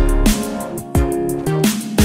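Background music with a steady beat: deep bass notes that drop in pitch on each hit, held tones above and crisp high ticks.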